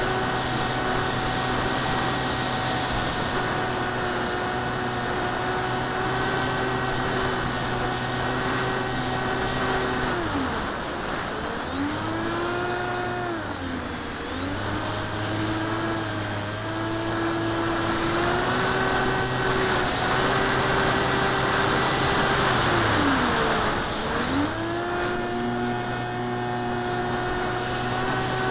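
Whine of a ParkZone Icon A5 RC plane's electric motor and propeller under throttle, with rushing air. The pitch drops and climbs back several times as the throttle is eased and reopened, most deeply about a third of the way in and again near the end.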